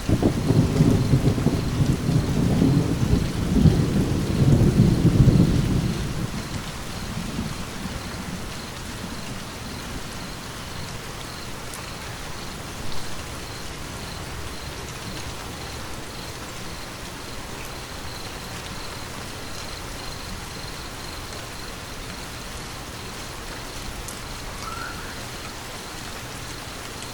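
Steady rain falling, with a roll of thunder rumbling loudly from the start and dying away after about six seconds.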